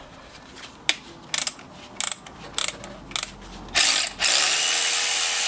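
Cordless ratchet undoing an engine ground bolt. A few single ratchet clicks come about every half second as the head is worked by hand, then the motor runs steadily for about two seconds from about four seconds in.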